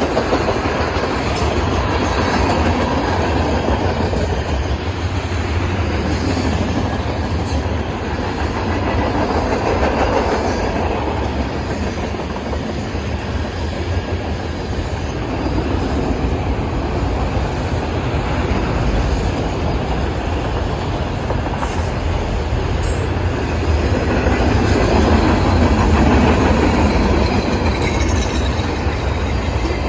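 Freight cars of a long manifest train (tank cars, autoracks, boxcars) rolling past at speed, their steel wheels rumbling and clattering steadily on the rails, swelling louder a little before the end.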